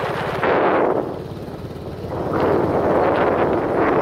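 Motorcycle engine running at a steady pulse while riding, with wind buffeting the microphone in two loud gusts: a short one near the start and a longer one from about halfway through.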